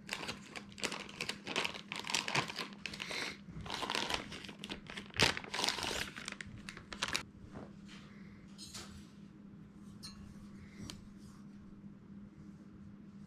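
Plastic packaging crinkling and rustling as a new camera is unwrapped and handled, busy for about seven seconds, then quieter with a few light clicks.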